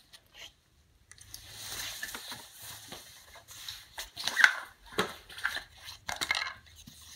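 Rustling and scattered clicks from a plastic toy figure and its packaging being handled, with a sharper knock about four and a half seconds in.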